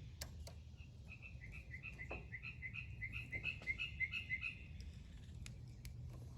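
A bird chirping a quick, even run of two-note calls, about three a second, for a few seconds, with a few sharp clicks around it.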